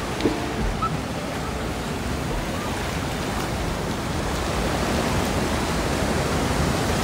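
Sea surf: small waves breaking and washing up the shore in a steady rush.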